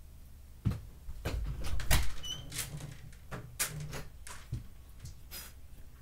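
Bedroom door being opened: a string of clicks and knocks with a short squeak, the loudest thumps about two seconds in.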